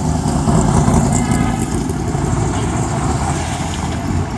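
Car engines running on the street, a steady low rumble.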